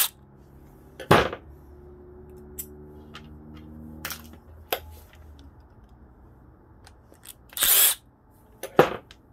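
Cordless Milwaukee Fuel drill/driver backing screws out of a carburetor float bowl: a steady motor whir for a few seconds, broken by sharp clicks and knocks of the driver, screws and tools handled on the bench, loudest about a second in and near the end.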